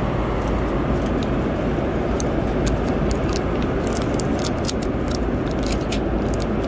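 Steady airliner cabin noise in flight, with crackling of thin plastic film from about two seconds in as it is peeled back off a hot in-flight meal dish.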